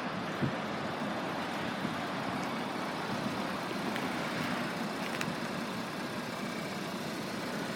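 Steady motor-vehicle noise with a low hum and a few faint clicks.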